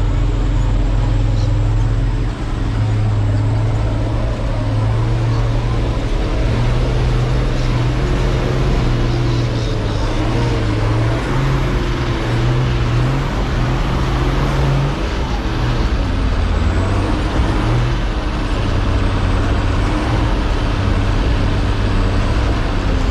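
4WD engine running steadily under heavy load as the vehicle crawls up a steep, rutted dirt hill, its pitch rising a little partway through and then settling back.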